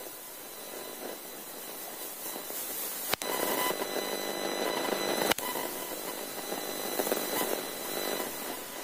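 Steady hiss of noise from a live outside-broadcast audio link, with a faint steady high tone and two sharp clicks about two seconds apart where the feed drops out for an instant. The reporter's voice is not coming through the link.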